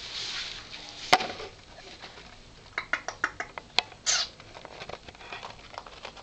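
A mouse scrabbling inside a canvas high-top sneaker: a sharp click about a second in, then a quick run of light scratching clicks around the middle, followed by a short rustle.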